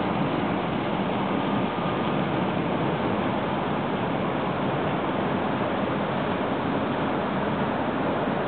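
Container ship Henneke Rambow passing close by: a steady, even rushing noise of its engine drone and the water washing along its hull.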